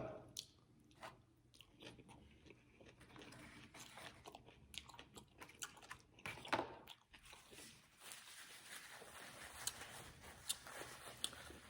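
Person chewing food close to the microphone: faint wet mouth clicks and soft crunches, with one louder bite about six and a half seconds in.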